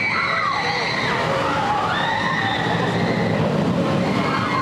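Blue Tornado inverted roller coaster in motion: a steady loud rumble and rushing noise, with high, long-held cries over it.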